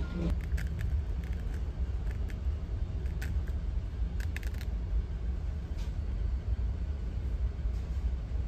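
Steady low rumble of a ferry's engines, heard inside the ship, with a few light clicks and taps from a spoon and a plastic cup being handled in the first half.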